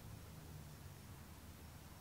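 Near silence with a faint low rumble.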